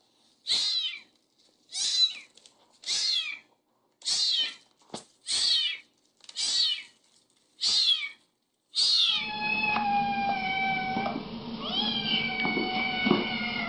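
Young kitten meowing over and over: short, high mews that fall in pitch, about one a second. About nine seconds in, steady background noise sets in and the meows become longer and wavering.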